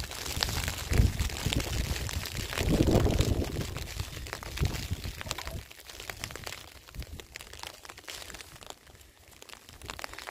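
Footsteps crunching on dry, stony dirt, many short scuffs and crunches, with a low rumble in the first few seconds that is loudest about three seconds in.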